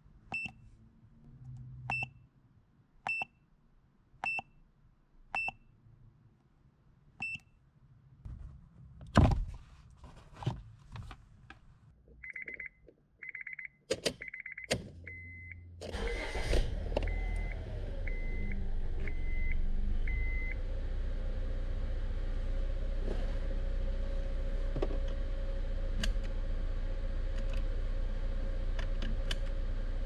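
Short electronic beeps about once a second, then clicks and a row of the car's warning-chime beeps. About halfway through, the 2004 Honda Civic's 1.7-litre four-cylinder engine starts, then idles steadily while the chime beeps a few more times.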